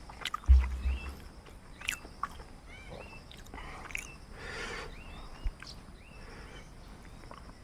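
Eating sounds from a man biting and chewing raw king chillies, with scattered small clicks. A short rushing noise comes about four to five seconds in, over repeated short bird chirps in the background.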